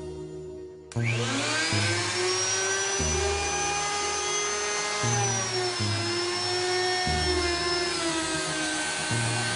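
Bosch GKF 600 trim router's motor switching on about a second in, spinning up quickly to a high steady whine. Its pitch sags slightly about five seconds in. Background music with a steady bass beat runs underneath.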